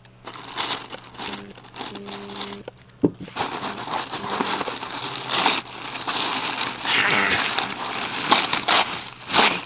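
Packaging being handled: rustling and crinkling of paper and plastic, faint at first, with a sharp click about three seconds in, then loud, continuous crinkling.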